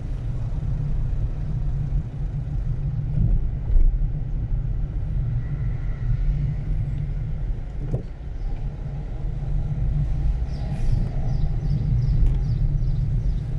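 A car driving: steady low road and engine rumble.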